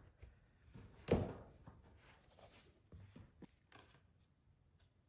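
Handling of a portable monitor and its protective case: one knock about a second in, then light rustling and small clicks that fade out.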